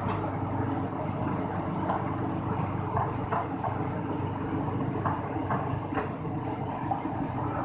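Tata Hitachi excavator's diesel engine running steadily as it swings its bucket to load a tipper truck, with a few short knocks scattered through.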